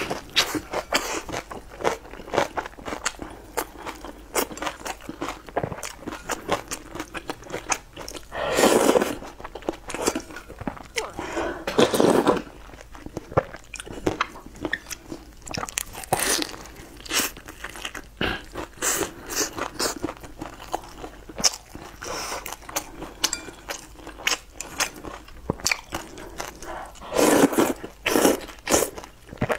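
Close-miked eating: crunching bites and chewing of a crisp sesame flatbread, with a few louder slurps of hot-and-sour glass noodles, about nine and twelve seconds in and two or three near the end.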